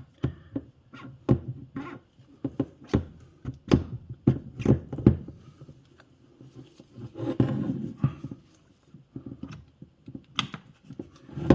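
Irregular sharp knocks and clicks of metal parts as a Mahle e-bike motor's casing is knocked apart and handled, with a brief scraping rustle about seven seconds in.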